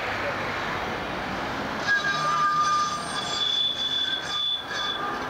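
GVB articulated tram's steel wheels squealing as it rounds a curve in the track, several high steady tones starting about two seconds in over the tram's rolling noise.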